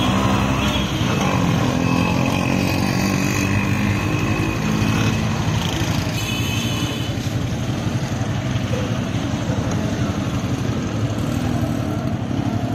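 Busy street traffic at close range: the engines of auto-rickshaws, motorcycles and a passenger van running and passing by in a steady, loud mix, with a few short high-pitched sounds on top now and then.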